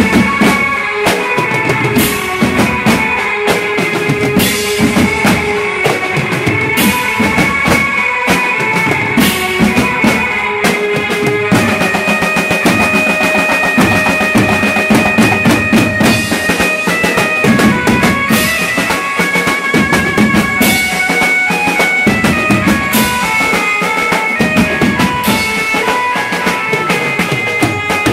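A Mumbai-style dhol and banjo party playing: the keyed Indian banjo (bulbul tarang) carries a melody of held notes over steady dhol and drum beats.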